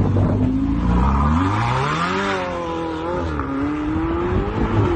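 Sports car engine revving hard as the car accelerates away. The pitch climbs for about two seconds, dips and wavers, then rises again near the end.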